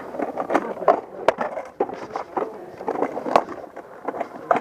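A string of sharp clacks and knocks, irregular, roughly two a second, over rustling and movement noise.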